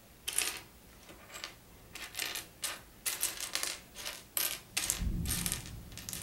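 Loose plastic Lego pieces clattering and clicking as a hand rummages through a pile of them on a tabletop, in quick irregular rattles, with a low thump about five seconds in.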